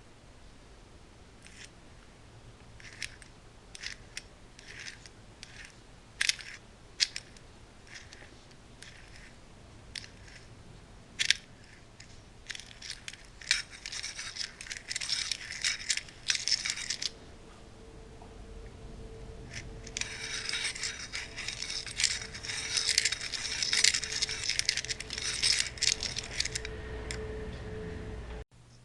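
Metal tools and parts clinking and scraping. Sharp clicks come one at a time at first, then two longer spells of dense rattling and scraping follow, the second with a faint steady hum under it.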